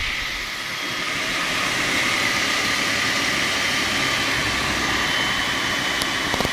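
Wadkin PK saw bench running free with no wood in the blade: a steady hum of the spinning blade and motor with a faint whine, and a brief click near the end.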